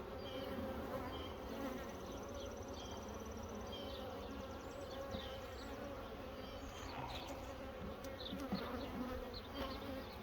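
Honeybees buzzing steadily in a dense drone around a hive that is open for a frame-by-frame inspection.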